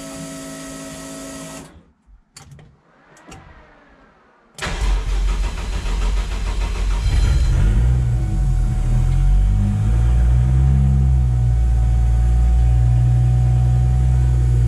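Toyota 1JZ-GTE turbocharged inline-six starting: after a steady whine that stops and a short lull, the engine catches suddenly about four and a half seconds in, its revs wander unevenly for several seconds, then it settles into a steady idle.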